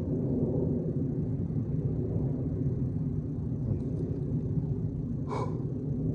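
Steady low rumble, with one brief sharp burst about five seconds in.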